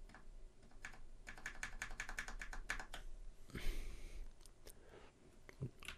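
Typing on a computer keyboard: a quick run of keystrokes, then a brief soft hiss and a few scattered keys.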